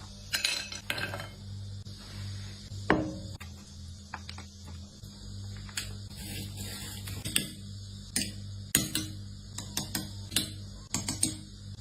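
Kitchenware being handled: scattered clinks and knocks of dishes and utensils, the loudest about three seconds in, over a steady low hum.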